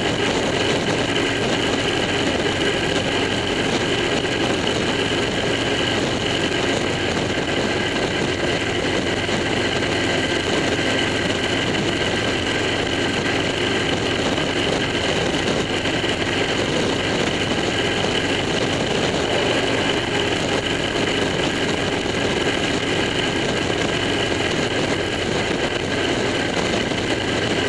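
Steady engine, wind and tyre noise of a vehicle cruising at highway speed, about 75 mph, holding an even level throughout with a faint steady whine on top.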